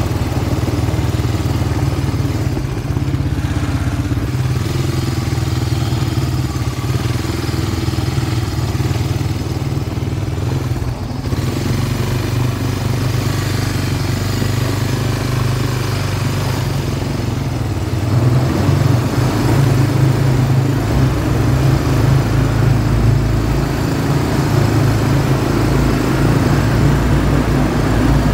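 ATV engine running steadily as the quad is ridden along a gravel trail, getting louder about two-thirds of the way through.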